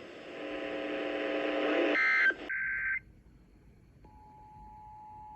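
Emergency Alert System radio alert starting. A buzzy noise grows louder for about two and a half seconds, then half a second of shrill data-burst tones follows. About four seconds in, the faint, steady two-tone attention signal begins.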